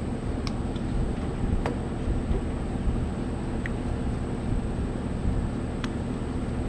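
Steady low background rumble, with a few faint clicks as a spark plug wire is pulled off and an inline spark tester is fitted onto the plug.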